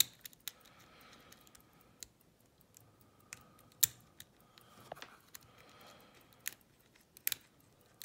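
Lock pick and tension wrench working in a Faultless pin-tumbler lock cylinder: scattered small, sharp metallic clicks, the loudest a little under four seconds in.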